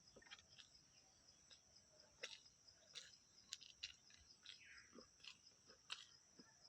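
Faint eating sounds: scattered wet mouth clicks and smacks of chewing. Behind them is a steady high-pitched hum.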